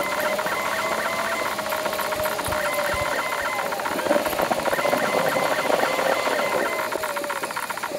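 Car cabin noise recorded by a dashcam and played back twenty times faster, so the engine and road noise become a steady, high-pitched buzzing hum that wavers slightly in pitch, over a dense, fast rattle.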